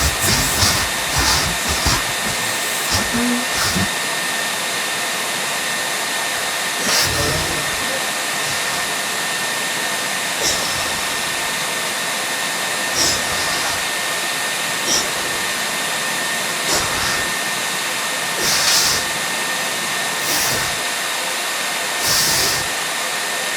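A bird calling indoors with short, high chirps every couple of seconds, spaced irregularly, over a steady hiss with a faint constant whine.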